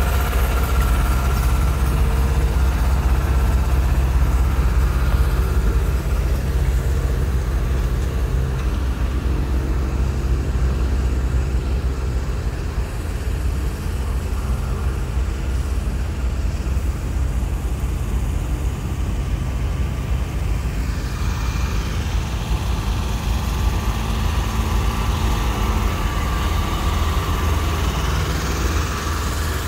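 Diesel engines of MAN heavy-haul prime-mover trucks running with a deep, steady rumble as their low-bed trailers go by.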